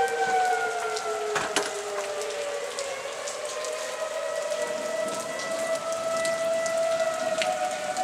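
Outdoor tornado warning sirens wailing at two pitches, which dip over the first few seconds and slowly rise back, over the steady hiss of rain.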